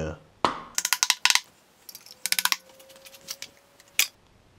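Metal hand tools and engine parts clinking and clattering together: a quick run of sharp metallic clicks, another cluster midway with a faint ringing note, and one last sharp clink near the end.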